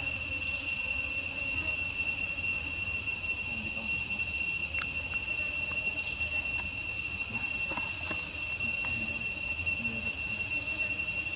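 Insects droning in a steady, high-pitched chorus of several unchanging tones, with a few faint ticks.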